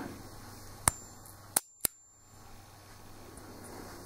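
Enfield No. 2 Mk I revolver's exposed lockwork being cycled: three sharp metallic clicks of the hammer and trigger parts. The first comes about a second in, and two follow close together about half a second later.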